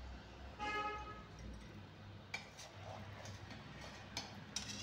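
A knife scraping and tapping a stainless steel plate: a brief metallic ring about half a second in, then a few light clicks and taps.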